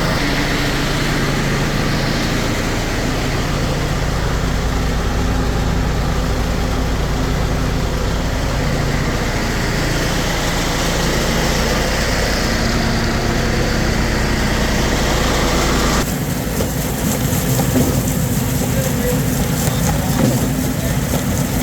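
Concrete mixer truck's engine running steadily as the truck mixes concrete, with a steady low hum and mechanical noise. The sound shifts abruptly about sixteen seconds in.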